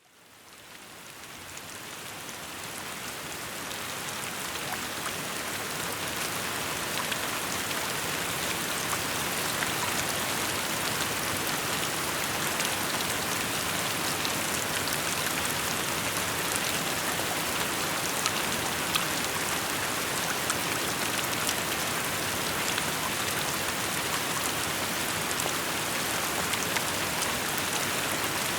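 Heavy rain falling steadily, with scattered ticks of individual drops, fading in over the first several seconds.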